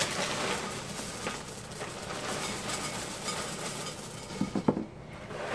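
Boo Berry cereal pouring from its box into a bowl: a steady dry rattling hiss for about four seconds, then a few light clatters near the end.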